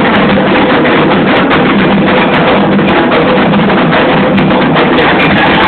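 Candomblé atabaque hand drums playing a loud, dense, unbroken rhythm for Xangô.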